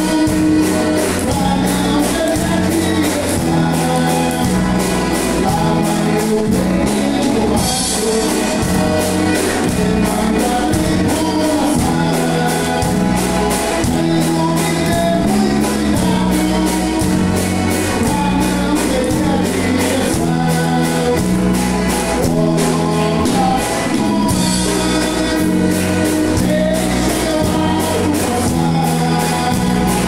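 Live band playing a song: accordion, electric bass, electric guitar and drum kit, with a singing voice. The bass steps back and forth between two notes under a steady drum beat.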